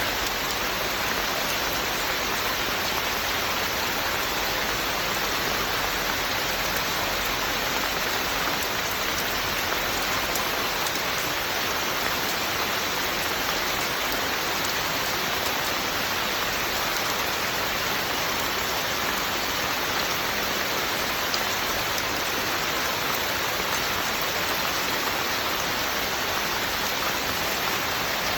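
Steady rain falling on a surface, an even hiss of drops with no pauses or changes.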